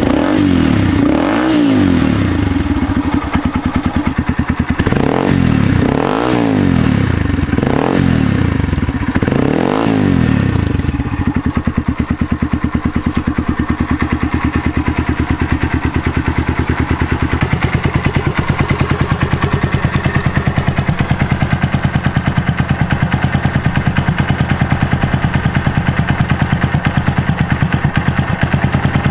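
Honda Grom MSX125's single-cylinder four-stroke engine revved sharply several times through an aftermarket exhaust in the first ten seconds. It then settles to a steady idle with an even, pulsing exhaust beat.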